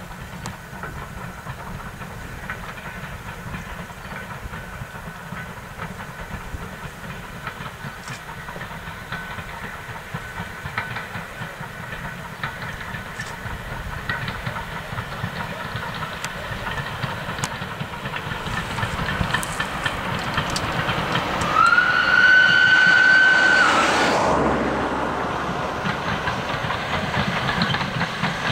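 Ivatt class 2 steam locomotive 46512 working a train, its running growing steadily louder. About three quarters of the way through, its whistle sounds once for a couple of seconds, followed by a hiss of steam.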